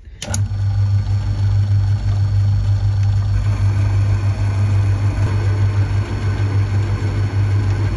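Small metalworking lathe running with a steady electric motor hum that comes on just after the start. From about three seconds in, a freshly sharpened tool turns down a thin silver-steel pin held in a collet, adding a faint higher cutting hiss.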